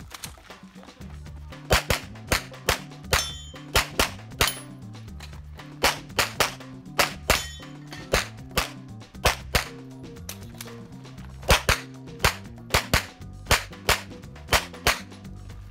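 A Canik TP9SFx 9mm pistol firing about thirty rapid shots, mostly in quick double taps, with short gaps between strings.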